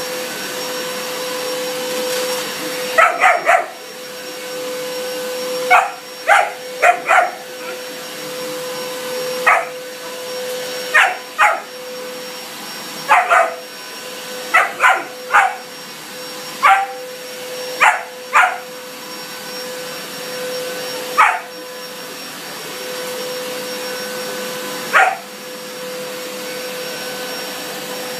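Vacuum cleaner running steadily with a constant tone, while a German shepherd puppy barks at it in short bursts of one to four sharp barks, about twenty in all, the last one near the end.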